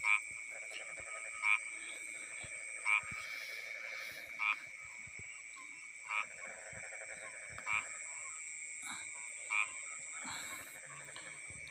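A frog calling with a short pulsed croak, about seven times at roughly one-and-a-half-second intervals, over a steady high insect drone.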